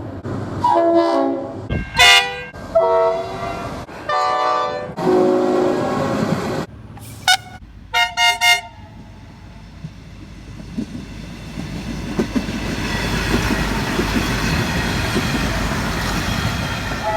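Train horns sounding in a quick series of short blasts from several different trains, one after another, ending in a few rapid toots. Then a train running along the rails, its wheel-and-rail noise building over the last several seconds.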